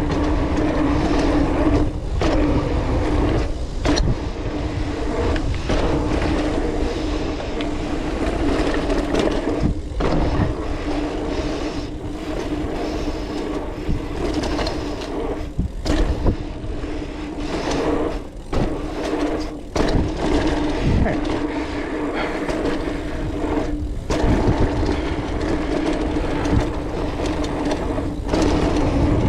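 Specialized Rockhopper mountain bike riding over a dirt trail: continuous tyre rumble and wind noise with frequent rattles and knocks. A steady hum drops out and returns several times.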